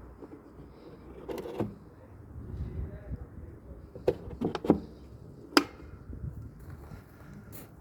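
A few sharp knocks and clicks over a low rumbling background, in a quick cluster about halfway through, with the loudest knock shortly after.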